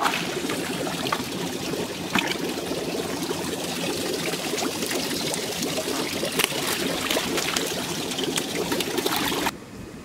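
Shallow water in a drained koi tank splashing and trickling as it is stirred by wading legs and a hand net scooping koi, with a few sharper splashes; it cuts off suddenly near the end.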